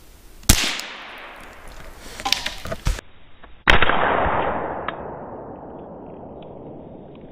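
Two gunshots about three seconds apart, each trailing off in a long echo through the woods. A few sharp clicks come in the gap between them.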